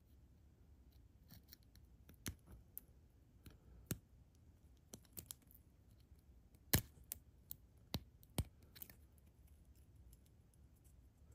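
Small, irregular clicks and scrapes of a tool working on the tiny plastic housing and parts of an Apple earphone's inline remote as it is pried apart, the sharpest clicks about four, seven and eight seconds in.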